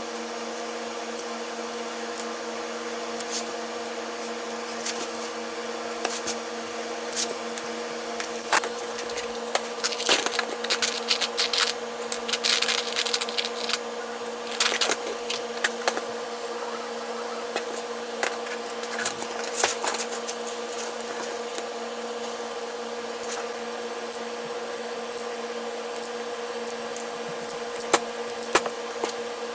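A steady mechanical hum of several fixed tones, with sharp clicks and knocks from handling between about eight and twenty seconds in and again near the end.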